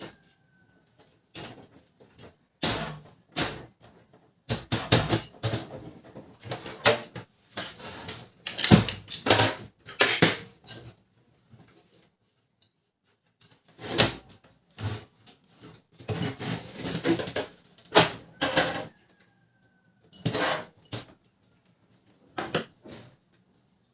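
Plastic and metal parts of a Canon LBP 2900 laser printer being handled and refitted by hand: irregular clicks, knocks and rattles in clusters, with a pause about twelve seconds in and a brief faint squeak twice.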